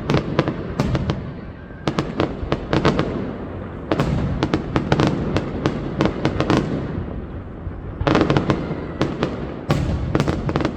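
High-altitude aerial fireworks bursting in rapid volleys of sharp cracks over a rumbling boom, the volleys coming in clusters every couple of seconds.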